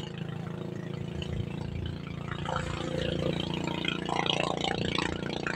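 A steady low engine hum, with irregular higher-pitched sounds over it that grow busier about halfway through.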